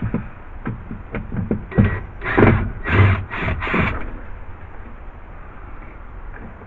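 A handful of short knocks and scraping clatters in quick succession, about two to four seconds in, from parts being handled and shifted, then only a low background.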